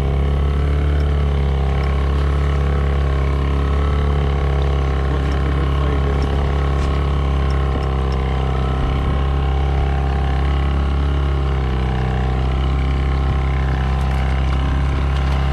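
Fishing boat's motor running steadily, a constant drone with no change in speed.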